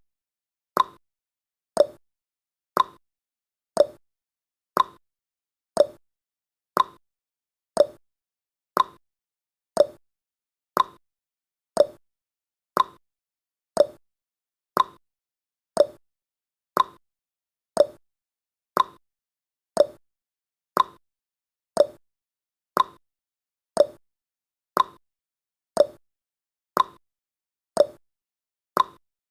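Countdown timer's clock-tick sound effect: a short sharp tick once a second, evenly spaced, with silence between.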